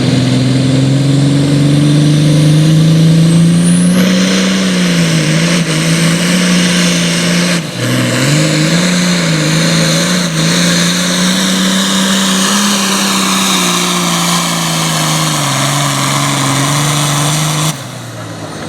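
Super farm pulling tractor's turbocharged diesel engine running at full throttle under load. Its pitch climbs over the first few seconds, then wavers up and down, with one sharp dip about eight seconds in. It cuts off abruptly near the end as the pass ends.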